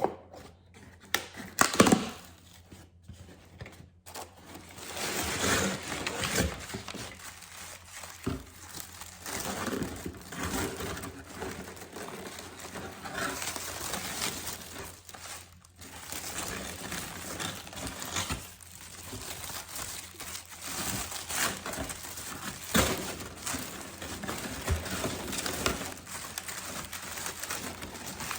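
Packaging being handled and crinkled in irregular rustling bursts, with a few sharper knocks about two seconds in.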